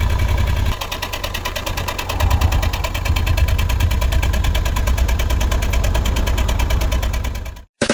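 Suzuki K6A three-cylinder engine running with an even, rapid pulsing exhaust beat and vibration, its No. 2 cylinder exhaust valve broken. It drops a little in level about a second in, comes back up about two seconds in, and cuts off suddenly near the end.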